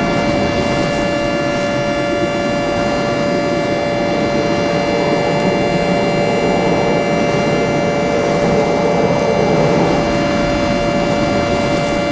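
Outdoor civil-defense warning siren holding a steady, loud wail over a rushing noise, sounding a tornado alert.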